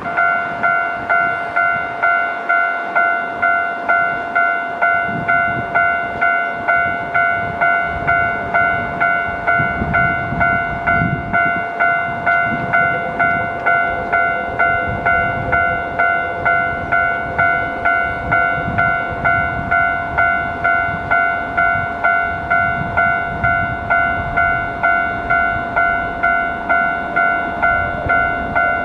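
Railway level-crossing warning bell starting suddenly and ringing on in an even, repeating ding, about three strikes every two seconds. A passing Keihan train's low rumble swells under it through the middle.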